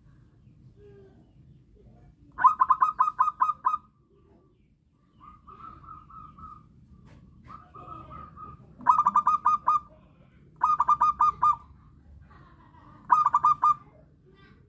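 Zebra dove (perkutut) cooing: four bursts of rapid staccato notes, with two softer, drawn-out coos between the first and second bursts.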